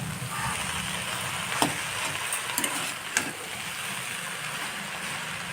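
Potatoes, eggplant and Malabar spinach seeds sizzling in a kadai as a spatula stirs in ground spices, with a few sharp clicks of the spatula against the pan about a second and a half, two and a half and three seconds in.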